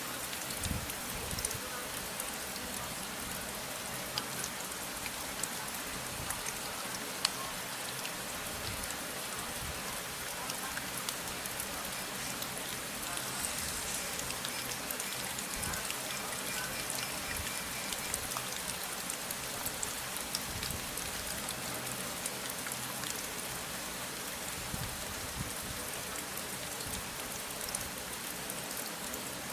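Steady rain, with many small drops ticking through it.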